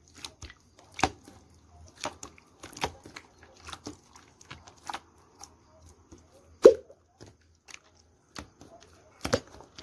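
Irregular sharp taps and clicks, roughly one a second, with one louder knock about two-thirds of the way through.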